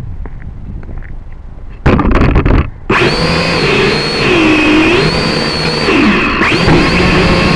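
Small quadcopter drone's electric motors and propellers starting up and running with a loud whine whose pitch wavers up and down as the throttle changes. A brief loud rush of noise comes just before the motors start, about two seconds in.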